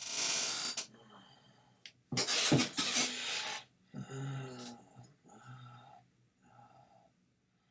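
A man coughing: two harsh noisy bursts, the second longer, followed by three short voiced grunts or hums from the throat.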